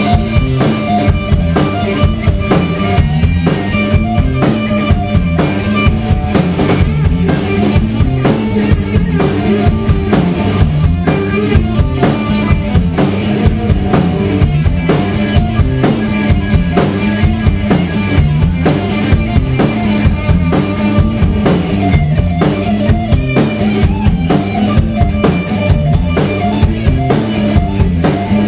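Live rock band playing an instrumental passage, loud and driving: a drum kit keeps a steady beat under electric bass and electric guitar.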